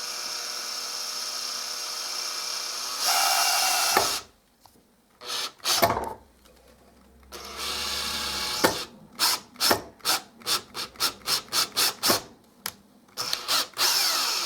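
Power drill turning a self-drilling screw to bore a small hole where a rivet was. The drill runs steadily, stops and starts, then gives a run of quick short trigger bursts, about two or three a second.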